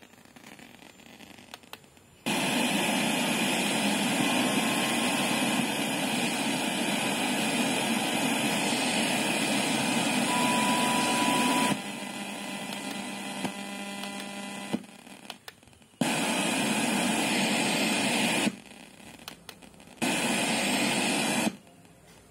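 FM radio static, a loud hiss of untuned noise, from the MZ M423SP soundbar's speaker as its FM tuner is stepped with the buttons. The hiss cuts in and out several times, with quieter stretches in between. A brief steady tone sounds about ten seconds in.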